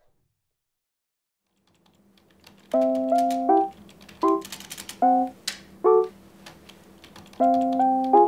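Silence for about the first two and a half seconds, then computer keyboard typing over light background music of short keyboard-instrument notes in repeated little phrases.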